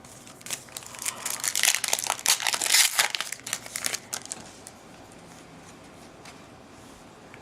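Crinkling and rustling of a trading-card pack's wrapper being handled and torn open, a dense crackle lasting about three and a half seconds.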